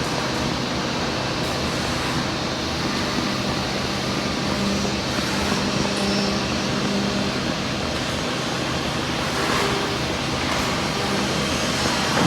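Woodworking CNC drilling and milling machine running, a steady mechanical noise with a motor hum that grows stronger for a few seconds in the middle.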